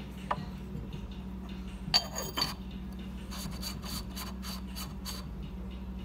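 Clay lid set onto a Yixing clay teapot with one sharp ringing clink about two seconds in. Then comes a run of quick scraping ticks, about four a second, as clay rubs on clay at the rim. A low steady hum lies underneath.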